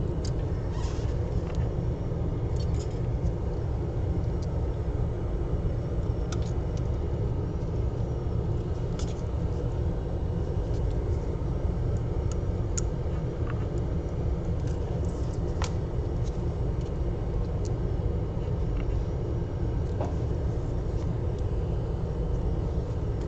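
Steady low background rumble, with a few faint scattered clicks and taps as flex cables and connectors of an opened iPad mini are handled and pressed into place.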